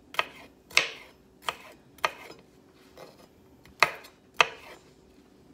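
Kitchen knife chopping a green bell pepper on a wooden cutting board: about six sharp knocks of the blade on the board, unevenly spaced, with a pause of about a second and a half in the middle.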